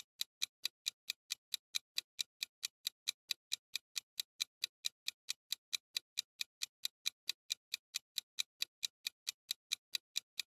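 Countdown-timer sound effect ticking steadily, about four short ticks a second, while the answer time runs out.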